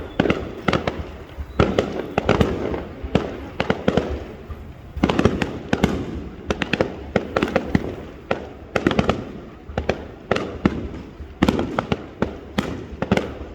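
Aerial fireworks display: a rapid, irregular barrage of bangs from bursting shells, several a second, over a continuous rumble and crackle.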